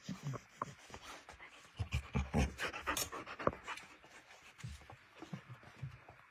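Cardigan Welsh Corgi puppy panting, with irregular bumps and scuffs close by, the heaviest about two seconds in.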